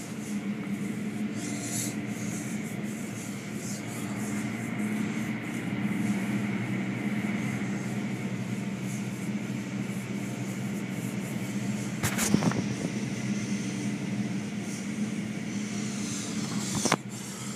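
Automatic car wash tunnel running, heard from inside the car: a steady machine hum under a broad rushing noise as the hanging cloth-strip curtain works over the car. A sharp knock comes about two-thirds through and another near the end.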